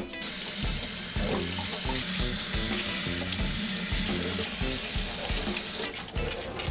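Kitchen tap running onto lettuce leaves being rinsed by hand over a steel mesh colander in a stainless steel sink. The water stops near the end.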